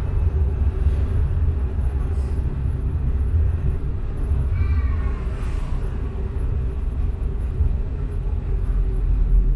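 Prague tram running along street track: a steady low rumble of wheels on rails and traction motors.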